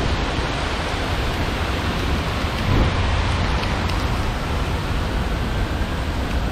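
Heavy rain pouring steadily onto a city street, a dense continuous hiss.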